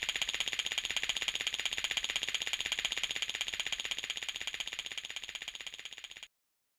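Cartoon sound effect of an alarm bell ringing with a rapid, even rattle of strikes, fading slightly before cutting off abruptly about six seconds in.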